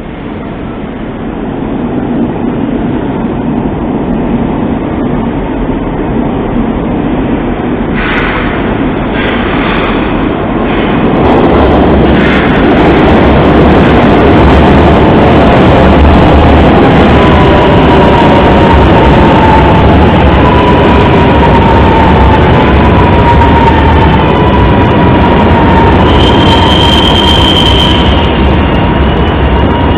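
Meneghino metro train of Milan's Line 1 arriving at the station: a rising rumble that gets louder about eleven seconds in, then a wavering wheel squeal through the second half as it slows, with a brief sharp high squeal near the end.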